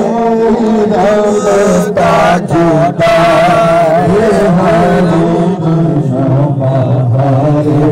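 Male voices chanting an Urdu naat, an Islamic devotional song, without words: a wavering melodic line hummed over a steady low held note.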